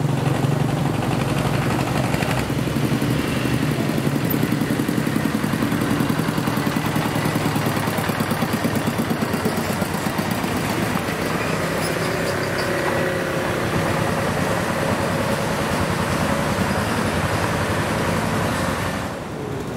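Old farm trucks' open single-cylinder diesel engines chugging steadily as they drive past, with motorcycle and car traffic around them.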